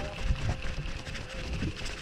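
Wind buffeting the action camera's microphone in irregular low rumbles, over a faint steady hum.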